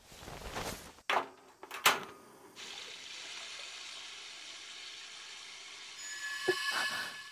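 A few short knocks, then a steady rushing hiss like running water, from an anime soundtrack.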